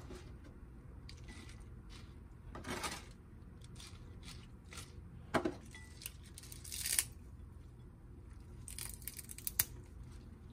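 Crisp lettuce and wild rocket leaves being torn by hand: several short tearing crunches, with a quick cluster of crackles near the end, over a low steady hum.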